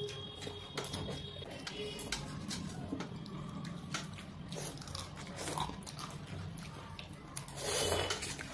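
Two people slurping and chewing soupy Maggi curry noodles, with light clicks of chopsticks and a fork against steel plates. A louder slurp comes near the end.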